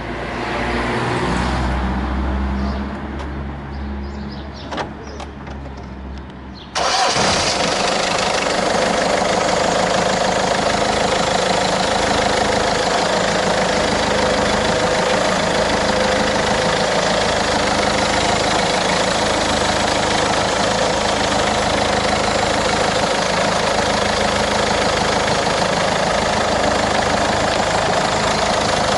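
1.6 HDi four-cylinder common-rail diesel engine. For the first few seconds the sound is quieter and uneven, with a few clicks. About seven seconds in, loud steady running at idle begins abruptly and carries on evenly.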